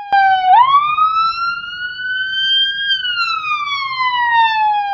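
A siren wailing. Its pitch dips, jumps back up about half a second in, climbs slowly, then falls slowly through the last two seconds.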